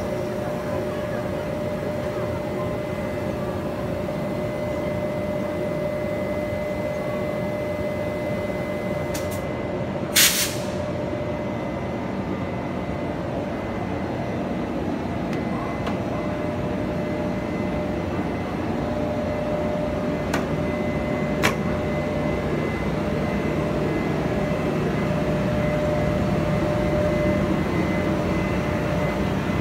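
Taiwan Railway E300-series electric locomotive E301 standing at the head of its train with a steady electrical hum. A short, loud burst of air hiss comes about ten seconds in. Near the end the locomotive pulls away with its train and the rumble grows.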